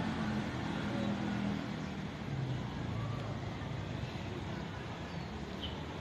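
Steady outdoor background of road traffic with faint voices, and a brief high chirp near the end.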